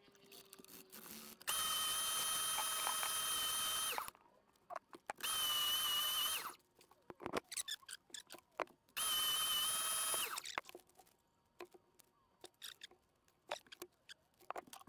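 A small electric power tool running in three short bursts, the first about two and a half seconds long and the next two about a second and a half each, each a steady high-pitched whine. Light clicks and taps of handling come between the bursts and after them.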